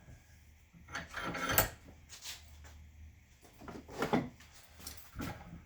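Tools and metal parts being handled: a drawn-out scrape that ends in a sharp knock about a second and a half in, another scrape and rattle around four seconds, and a short knock just after five seconds.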